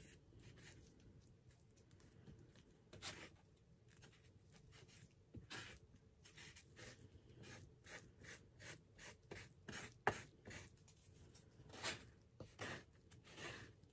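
Filler being mixed by hand, faint, short irregular scraping and stirring strokes, with a sharp tap about ten seconds in.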